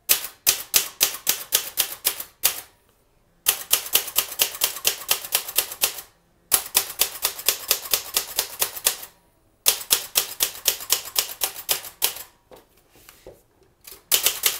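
Manual typewriter being typed on: rapid key strikes and typebar clacks, about four or five a second, in several runs broken by short pauses.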